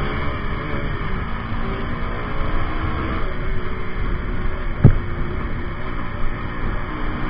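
KTM RC200's single-cylinder engine running at riding speed through traffic, its pitch rising and falling with the throttle, under a steady rush of wind. A single sharp thump comes a little under five seconds in.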